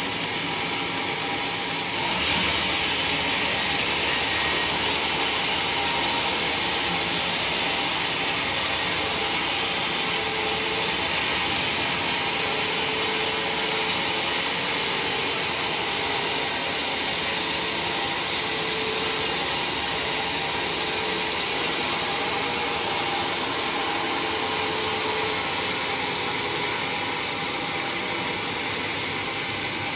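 A power tool running steadily, louder from about two seconds in.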